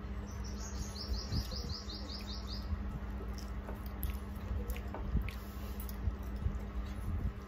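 A bird's fast trill of about a dozen short, high chirps in the first two and a half seconds. Under it, faint wet clicks and squishes of rice being mixed and eaten by hand, over a steady low hum.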